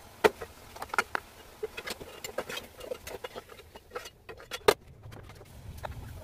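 Besan (gram-flour) fritters deep-frying in hot oil: irregular crackling and popping, with a few sharp, much louder clicks about a quarter second in, about a second in, and just before five seconds.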